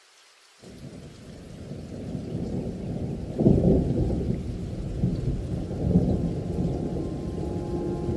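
Rolling thunder that starts about half a second in, builds to a loud clap about three and a half seconds in, then rumbles on with smaller swells.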